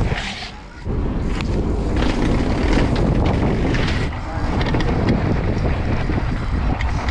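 Wind buffeting the microphone: a loud, rumbling rush with a brief dip just under a second in, cutting off suddenly near the end.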